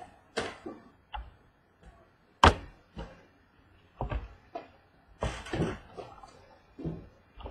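Small cardboard boxes of trading cards being lifted and set down one after another on a wooden tabletop: a series of separate knocks and thumps, the loudest about two and a half seconds in.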